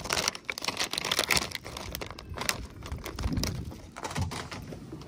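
Clear plastic soft-bait package crinkling and crackling as it is handled and opened, in a dense run of quick crackles that thins out after about three seconds.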